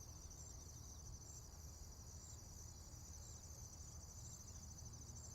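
Near silence: room tone with a faint, steady high chirring of insects.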